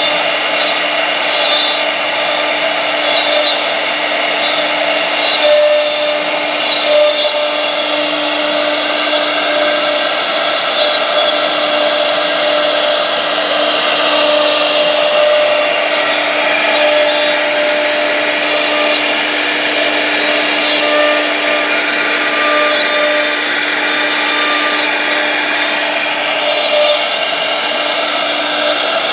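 A CNC router's spindle running at high speed while a fine tapered bit carves a relief into a wooden panel: a loud, steady whine that holds its pitch, with small swells now and then.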